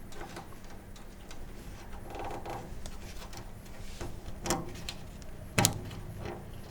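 Retainer clip being pushed onto the back of an out-of-service light in a bill changer's door: handling clicks and a brief rattle about two seconds in, then two sharp snaps, the louder one about five and a half seconds in.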